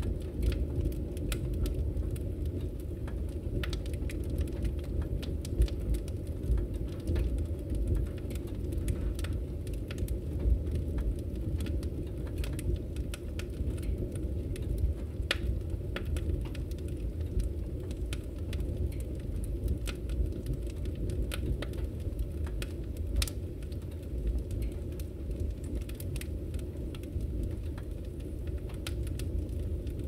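Wood fire burning in a fireplace: a steady low rumble of flames with irregular crackles and pops from the burning logs, a few of them sharper and louder.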